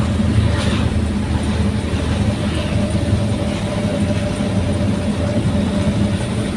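Daihatsu Gran Max pickup's engine and exhaust running at a steady speed while driving: a low, steady drone.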